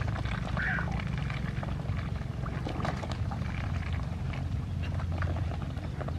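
Ducks and chickens feeding from a tray of wet chopped water morning glory porridge: many quick wet clicks and slurps of bills dabbling and pecking in the mash, over a steady low rumble.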